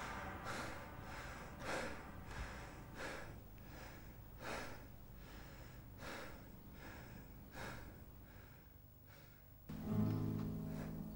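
Faint soft whooshes recurring about once a second, then, near the end, low sustained notes of a string instrument begin.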